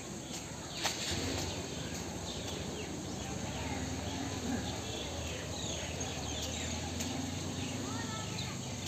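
Birds chirping, many short falling calls one after another, over a steady low background hum.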